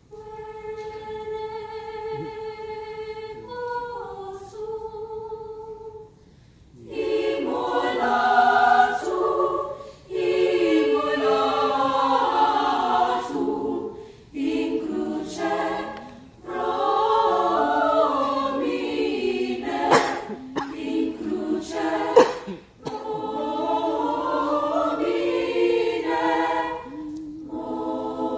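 A mixed choir singing. It opens with a soft held note, then sings full phrases with short breaths between them.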